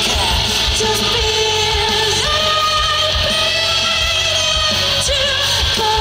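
Male vocalist belting a rock song into a microphone over loud rock accompaniment with a beat. The voice slides down at the start, then holds a long note from about two seconds in, which wavers near the end.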